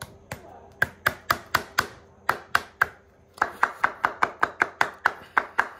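Hammer tapping a nail into a leather boot heel counter on a shoe last: a few separate taps, a short pause, then a quick even run of about four taps a second.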